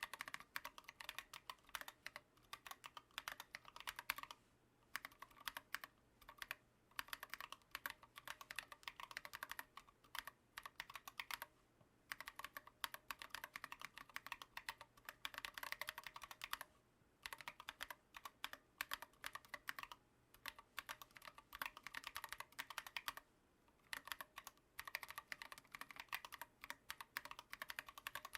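Typing on a Planck Hi-Pro ortholinear keyboard with lubed Holy Panda V2 tactile switches and SA keycaps: fast runs of keystrokes, broken by brief pauses every few seconds.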